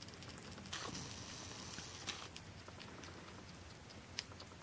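Faint, scattered little clicks and smacks of a sugar glider chewing a mealworm.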